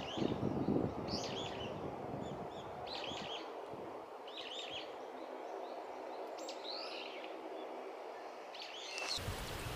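Brown-eared bulbuls calling from a flowering cherry tree: short clusters of shrill chirps about once a second over a steady background hiss.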